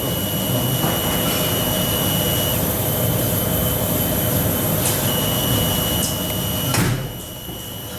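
Electrical machinery running with a steady hum and high whines. A sharp knock comes near the end, after which it runs on more quietly.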